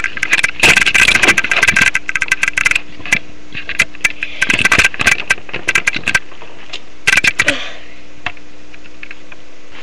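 Plastic dolls and a toy car being handled close to the microphone: irregular clicks, rattles and scraping in clusters, which stop about 7.5 s in.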